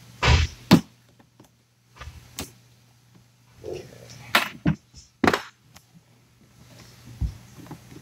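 Pliers working rubber inserts out of a Yamaha Grizzly ATV's plastic body panels: a series of sharp clicks and knocks at irregular intervals, loudest in the first second.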